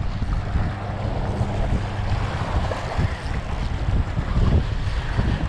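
Wind buffeting the microphone, with small waves washing and splashing against shoreline rocks.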